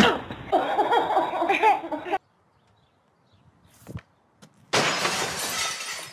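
A voice crying out for about two seconds. About two seconds later a hockey stick snaps a puck with a sharp click, and soon after comes a loud breaking crash with a hiss that fades over a second or so.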